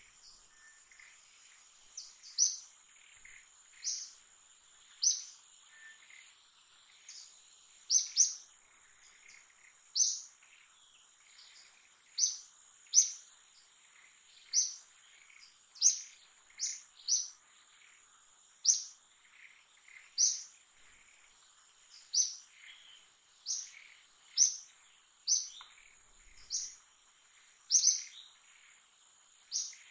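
A bird calling with short, sharp, high chirps, repeated about every second or two, over a steady high insect drone.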